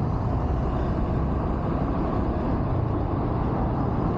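Motorcycle riding at speed: a steady rush of wind and road noise with a low engine hum underneath.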